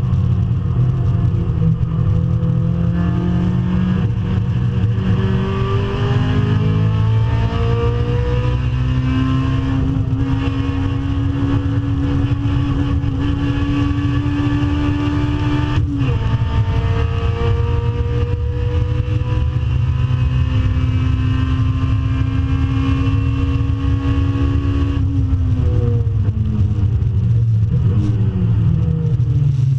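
2009 Honda Civic Si's cammed K20 2.0-litre four-cylinder at full throttle on track, heard from inside the stripped cabin. The engine note climbs steadily for over ten seconds, drops sharply at an upshift about halfway, climbs again, then falls away near the end as the driver lifts.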